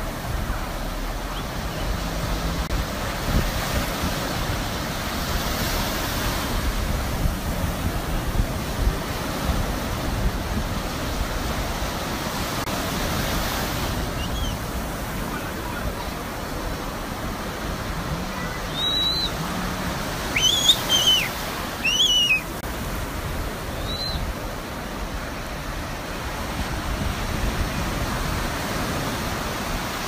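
Surf breaking and washing up on the shore. A few short, high-pitched cries sound about two-thirds of the way through.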